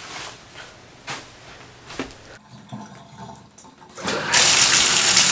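A few faint knocks and rustles, then a shower mixing valve is turned on about four seconds in and water gushes out loudly and steadily.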